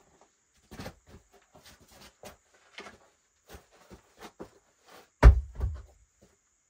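Footsteps scuffing and crunching on a dry dirt and grit floor, then a heavy stone dropped onto the ground with a dull thud a little over five seconds in, followed by a smaller second knock.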